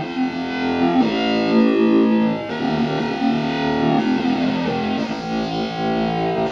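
Modular synthesizer sequence played through a switched-resistor voltage-controlled filter, with two VCOs feeding a pair of filters. It gives a run of buzzy, pitched notes with vowel-like formants that shift as the clock and signal frequencies are adjusted.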